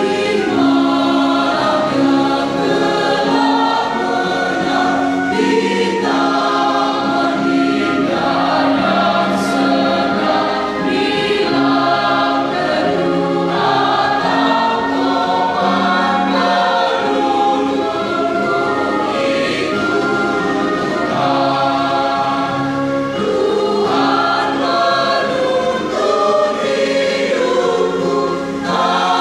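Mixed choir of women and men singing a hymn together, in sustained phrases with short breaks between them.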